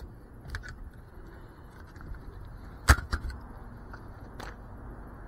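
A few sharp knocks and clicks of handling over a faint steady hiss. The loudest knock comes about three seconds in, with a smaller one just after it.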